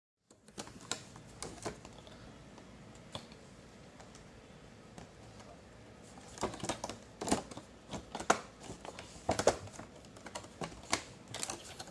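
Clear plastic packaging tray of a headphone box being handled and lifted out: scattered light clicks at first, then denser, louder crackling and clicking from about halfway through.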